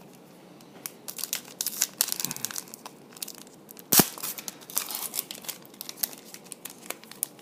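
A trading card pack's foil wrapper being torn open and crinkled, with dense crackling rustles and one sharp click about four seconds in.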